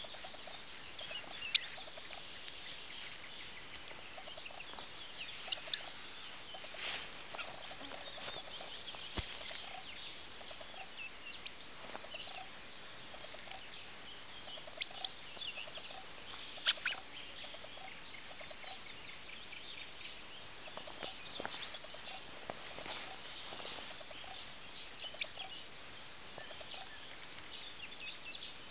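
Fieldfare fledgling giving short, sharp, high-pitched calls every few seconds, sometimes in quick pairs, over faint background bird chatter.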